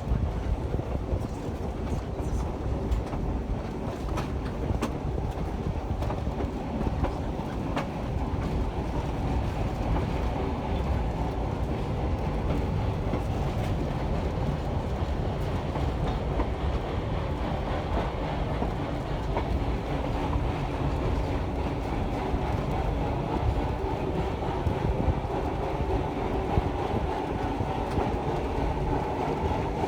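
Passenger railroad car rolling along the track, heard from on board: a steady rumble of wheels on rail with occasional clicks from the rail joints.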